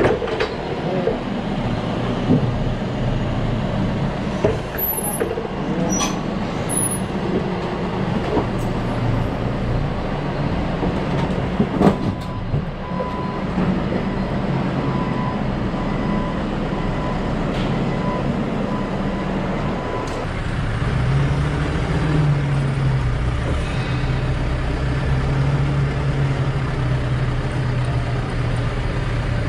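Forklift engine running steadily, with scattered clanks and knocks. A faint beeping tone comes and goes for several seconds midway. About two-thirds of the way through, the engine speeds up and holds at higher revs.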